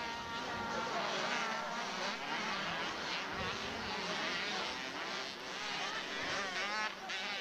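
Several 80cc two-stroke motocross bikes buzzing at once, their engines revving up and down in overlapping, rising and falling pitches as they race round the dirt track.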